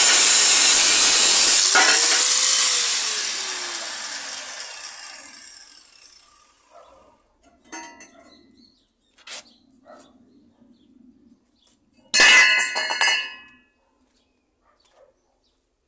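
Angle grinder cutting through a steel wheel rim, then switched off and winding down over about four seconds. Light metal clinks follow, and about twelve seconds in, a loud ringing clang as the cut-out steel wheel centre lands on the concrete floor.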